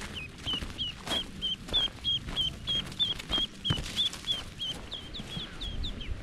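Ducklings peeping: a steady string of short, high peeps, about three a second, over rustling steps in dry leaf litter.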